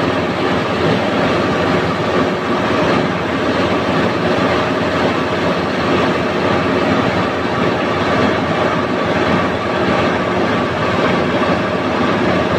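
Mobile crane's engine running with a steady, dense mechanical noise and a faint hum, without a break.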